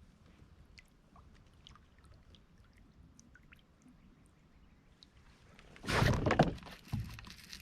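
Sudden loud splashing and knocking about six seconds in, then a second shorter hit, from a kayak on the water as a big bass is hooked.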